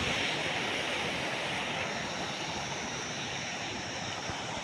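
Fast-flowing canal water rushing steadily under a low bridge between its concrete piers, easing slightly after about two seconds.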